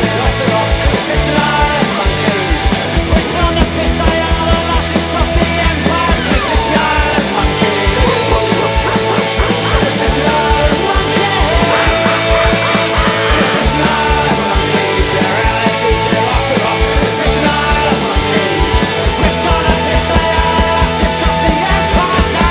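Loud punk rock band music with a steady, driving drum beat.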